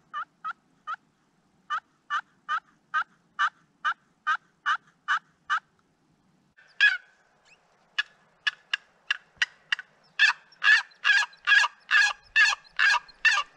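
Turkey call imitating a hen: a run of about a dozen evenly spaced yelps, a short pause, then one sharp note, a quicker flurry of notes, and a louder closing run of yelps.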